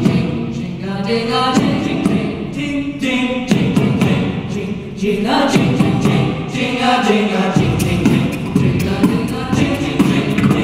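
An a cappella vocal group singing into handheld microphones: a lead voice over sustained backing harmonies, with a steady beat of sharp vocal-percussion clicks.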